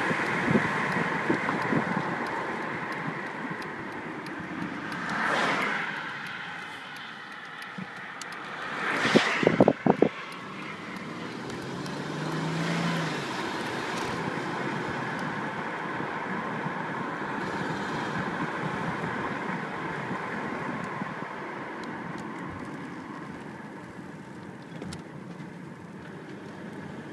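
Mercedes car running, its sound swelling twice in the first ten seconds, with a cluster of sharp, loud clicks at the second swell before it settles to a steadier, fading sound. This is the noise that comes on under load or a blip of the throttle, which the owner suspects is either an exhaust leak or a bearing.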